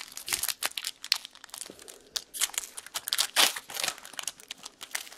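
A trading-card pack wrapper crinkling and tearing as it is opened and handled: a quick, irregular run of sharp crackles and rustles.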